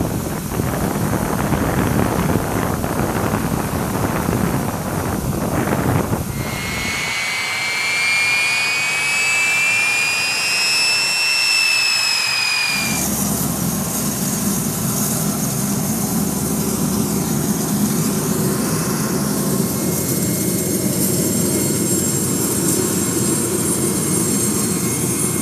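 Jet engine noise from a KC-135 Stratotanker's CFM56 (F108) turbofans on the ground. At first a loud rushing jet noise; about six seconds in it gives way to a high engine whine that slowly rises and then falls in pitch; around thirteen seconds in it changes abruptly to a steady rumble with a high whine over it.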